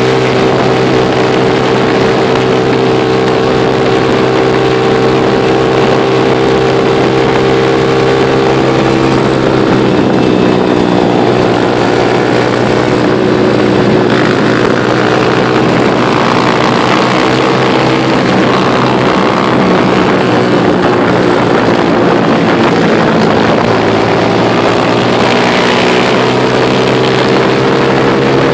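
Motorcycle engine running steadily under way, with wind rushing over the microphone. Its pitch drops about a third of the way in and climbs again near the end as the bike slows and speeds up.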